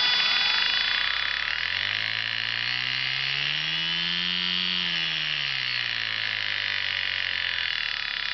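Small electric motor of a Sukhoi SU-26m RC model plane spinning its propeller: a steady high whine over a lower hum that rises in pitch toward the middle and then falls back. The humming noise is the problem, which the owner puts down to a lopsided propeller.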